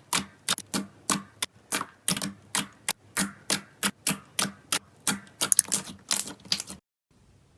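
Slime being pressed and poked, giving a quick series of sharp popping clicks about three a second. The clicks cut off suddenly near the end.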